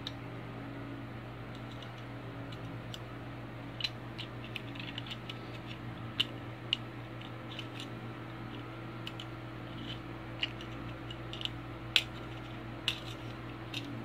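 Stainless steel multi-tool being handled, its folding tools and lock giving off scattered sharp metal clicks, several of them loud, starting a few seconds in. A steady low hum runs underneath.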